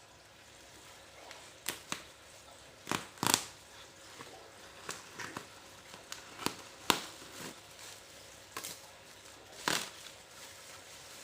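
Irregular clicks, knocks and rustles of a package being handled and opened, with the loudest knocks a little after three seconds and a sharp click near seven seconds.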